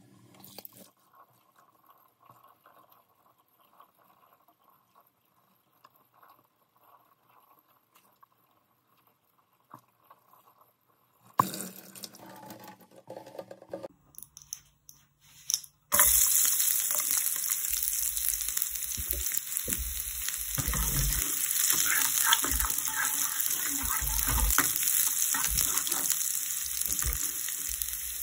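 Sliced garlic and shallots sizzling in hot oil in a frying pan, starting suddenly about two-thirds of the way in and running loud and steady with crackles. Before that there are only a few faint clicks.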